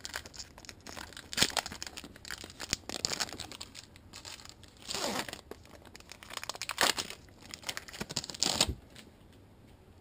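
Wrapper of a pack of trading cards being torn open and crinkled by hand, in irregular crackles with a few louder rips. The crackling stops a little before the end.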